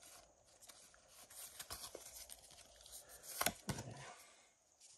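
Pokémon trading cards being handled and flipped through: a run of soft slides and sharp little snaps of card against card. The loudest snap comes about three and a half seconds in.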